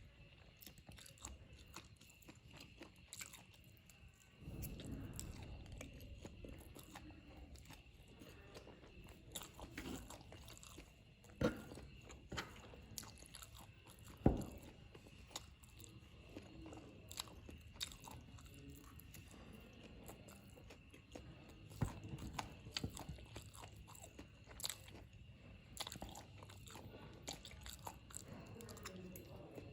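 A person chewing and biting spicy fried noodles close to the microphone, with many small wet clicks and smacks. Two sharper knocks near the middle stand out as the loudest sounds.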